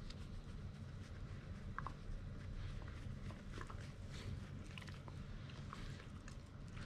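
Shiba Inu dogs moving about on asphalt and being petted: light scattered ticks of claws and rustles of fur and handling, over a steady low hum.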